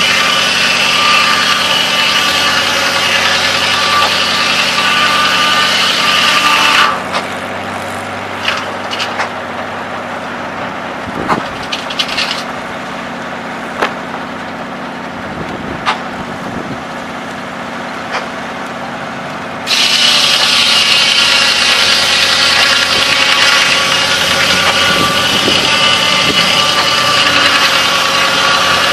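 Circular sawmill blade cutting through a log with a loud, steady whine, which stops about seven seconds in. For about thirteen seconds only the engine powering the mill runs steadily, with a few sharp knocks, then the blade cuts into wood again for the rest.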